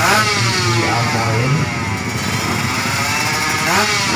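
Drag-racing motorcycle engine revved in sharp blips, four quick rises and falls in pitch, dropping back to a fast idle between them.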